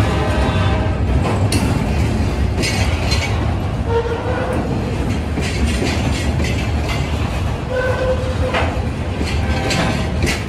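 Freight train cars rolling past with a steady rumble and the clickety-clack of wheels over rail joints. Two brief whining tones come about four and eight seconds in.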